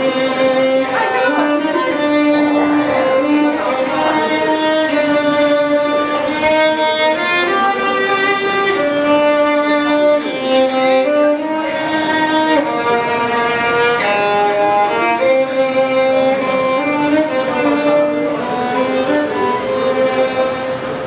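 A violin playing a melody of sustained, singing notes.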